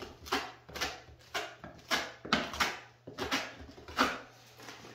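A small steel hand trowel scraping and pressing wet Structolite base-coat plaster onto wood lath in short repeated strokes, about two a second. It is laying the scratch coat, working the plaster tight into the lath so that it keys in behind the boards.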